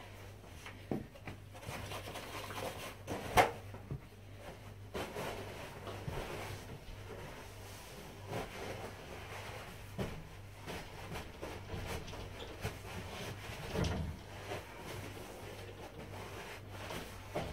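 Kitchen roll rubbing and wiping over a glass shower screen, with a few sharp knocks, the loudest about three and a half seconds in, over a steady low hum.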